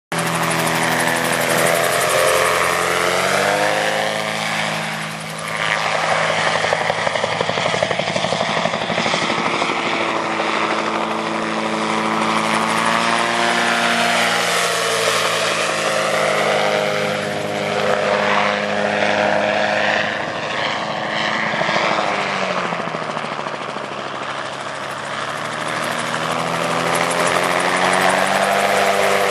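Magni Gyro M16 gyroplane's Subaru engine and pusher propeller running as it flies low over the field. The pitch and loudness rise and fall several times as it manoeuvres, with clear drops in pitch around 3 to 5 seconds and again near 22 to 24 seconds before climbing back.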